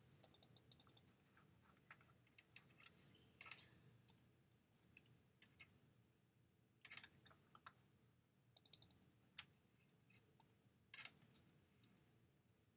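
Faint clicking of a computer mouse and keyboard: scattered single clicks and a few short, quick runs of key taps, as values are typed into a dialog box.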